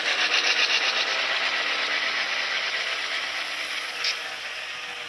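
DCC sound decoder in an HO scale FP7 diesel model playing the prime-mover sound at third notch through the model's small speaker: a steady, rhythmic engine beat that eases off slightly in level, with a single light click a little after four seconds in.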